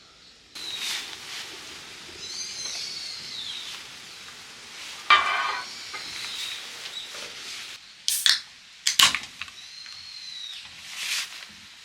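Food sizzling in a pan, with several sharp clinks of a utensil or cookware and repeated whistled bird calls behind.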